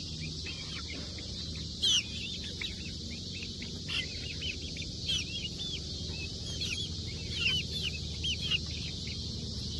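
Young chickens peeping: a quick run of short high chirps, several a second, over a steady background hiss, with one brief knock about two seconds in.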